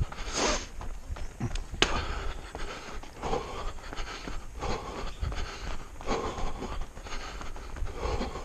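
A runner's heavy panting breaths, about one every one and a half seconds, over the crunch of footsteps on a gravel path.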